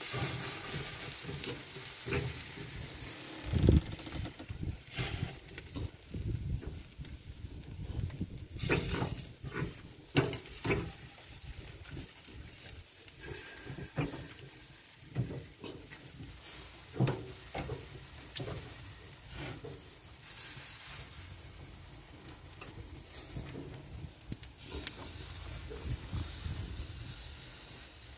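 Jerk chicken sizzling on the wire grate of a charcoal barrel grill, with a steady hiss broken by scattered sharp knocks and clicks.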